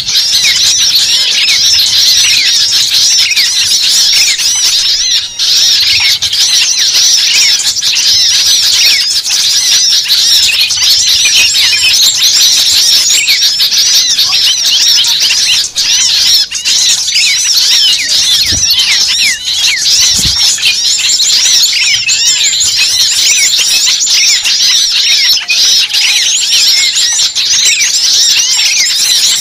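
Many birds chirping at once, a dense unbroken chatter of short overlapping calls, as from a large flock.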